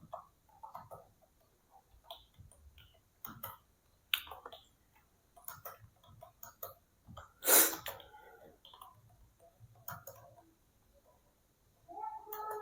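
Typing on a Dell KB216 wired membrane keyboard: irregular key clicks, with one louder, longer burst about halfway through.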